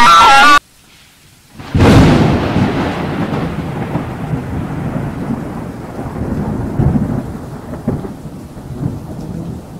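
A child's scream cuts off abruptly half a second in. After a short silence, a sudden thunderclap breaks about two seconds in and rolls on as rumbling over steady rain, slowly fading: a thunderstorm sound effect.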